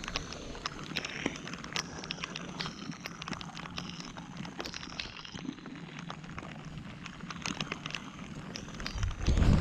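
Rain: a steady hiss with many irregular sharp taps of drops hitting the kayak and the microphone. About nine seconds in, a louder low rumble starts.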